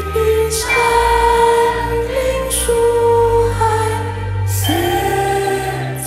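A slow song with singing over held chords. The chords change about half a second in and again near the end.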